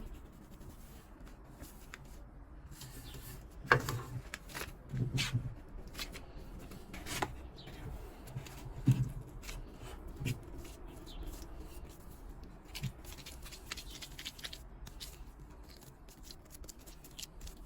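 Hands working soft bread dough, pinching and rolling it into small balls, with rubbing and a few soft thumps as pieces are set down on a floured tray.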